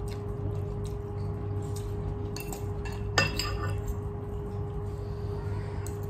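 Cutlery clinking against a stainless steel bowl: a light clink, then a sharper one about three seconds in that rings briefly, over a steady low hum.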